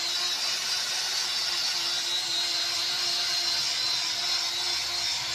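A motor running steadily, with a constant hum under a hiss.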